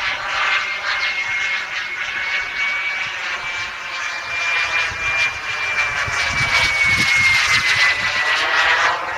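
Wren 54 model jet turbine in flight on a Falcon 120: a steady high-pitched whine over a rushing roar. It grows louder for a few seconds and the whine's pitch drops near the end as the jet passes by.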